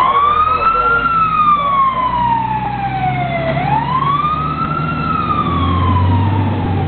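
Fire engine siren on a slow wail. The pitch climbs quickly, then falls slowly, twice, over the truck's low engine rumble.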